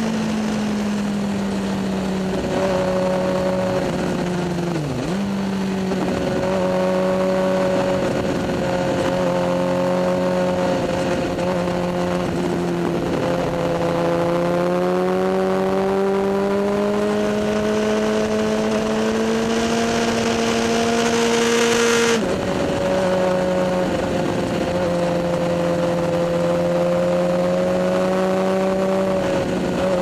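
Suzuki GSX-R 1000 inline-four engine running at a steady cruise, heard from the bike itself with wind noise over the microphone. The revs dip briefly about five seconds in, climb slowly through the middle, then drop suddenly at a gear change about two-thirds of the way through.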